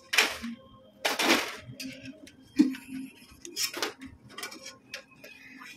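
Steel perforated ladle scraping and clinking against a steel kadai and bowl as crisp fried besan sev is scooped from the oil and tipped onto paper, with a few rustling scrapes and one sharp metal tap about two and a half seconds in.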